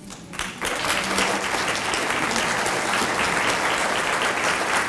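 Audience applauding, starting about half a second in and carrying on steadily.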